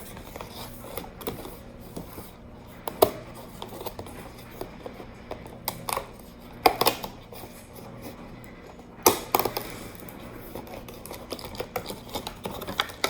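Scattered clicks, taps and scrapes of fingers and long fingernails working a small cardboard advent-calendar box and its packaging open, with sharper knocks about three, six and a half, and nine seconds in.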